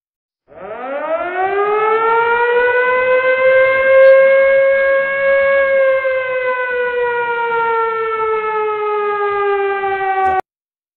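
Air-raid siren sound effect: one long wail that winds up in pitch over a few seconds, then slowly sags, and cuts off abruptly near the end.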